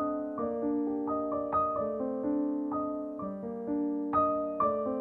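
Background piano music: notes and chords struck in an unhurried, even pulse, each note fading as the next comes in.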